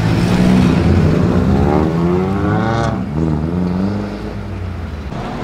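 A modified car accelerating hard. Its engine revs climb steeply for about a second and a half, then cut off sharply about three seconds in with a short crack as the driver shifts or lifts off. The note then drops and fades, with other engines running steadily underneath.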